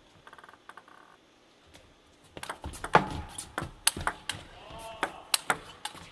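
Table tennis rally: the celluloid-type ball clicking sharply off the rackets and table in quick succession, starting a little over two seconds in, with a brief squeak partway through.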